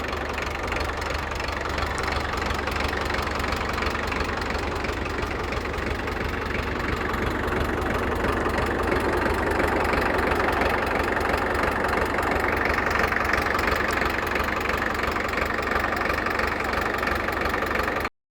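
Diesel engine of a 1963 International TD5 crawler bulldozer running steadily, getting somewhat louder about halfway through. It stops abruptly near the end.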